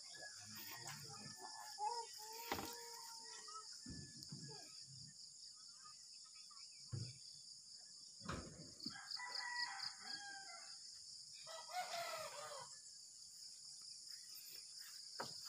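Rooster crowing faintly several times over a steady high insect buzz, with a few knocks in between.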